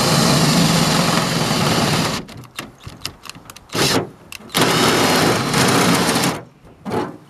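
Cordless drill boring through the sheet-metal rear door of a van: the motor runs steadily for about two seconds, then comes in short stop-start bursts, runs steadily again for about two seconds, and ends with one brief burst.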